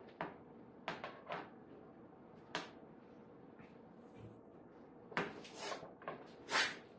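Scattered light clicks and rustles of a bread maker's power cord being unwound and handled, with a louder knock near the end as the plug is pushed into a socket low on the wall.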